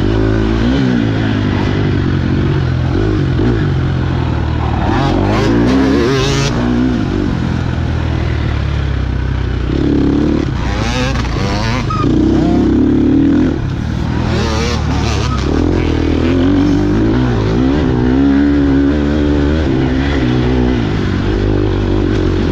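KTM 250 XC-F four-stroke single-cylinder dirt bike engine revving up and dropping back again and again as the rider works the throttle and shifts gears while racing, with a brief let-off about thirteen seconds in.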